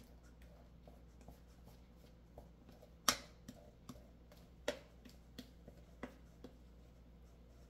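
Spatula scraping thick batter out of a metal mixing bowl into a metal loaf pan: a scatter of soft clicks and taps from spatula and bowl, the loudest about three seconds in. A faint steady hum runs underneath.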